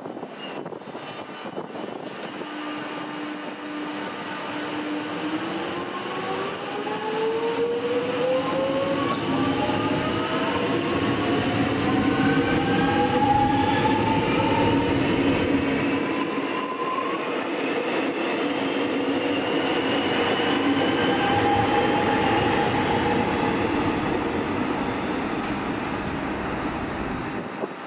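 Alstom X'trapolis electric suburban train pulling out and accelerating away. Its traction motors whine in several tones that climb steadily in pitch, over the rumble of the wheels on the rails. The sound grows loudest about halfway through and fades a little near the end as the train moves off.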